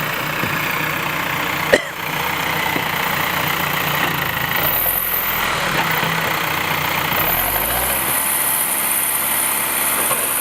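Diesel engine of a heavy earthmoving machine running steadily near idle, with a single sharp knock about two seconds in and a change in the engine note near the end.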